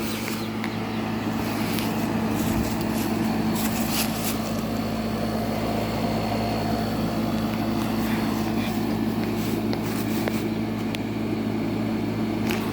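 SPT 12,000 BTU air conditioner running: a steady fan rush over a constant compressor hum, with a few light clicks.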